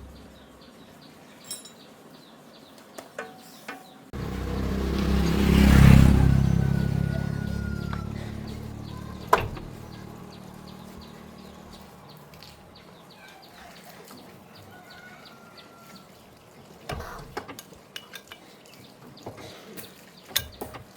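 Scattered metallic clinks and knocks of hand tools on metal. About four seconds in, a low mechanical drone starts suddenly, swells for about two seconds and then fades away over several seconds.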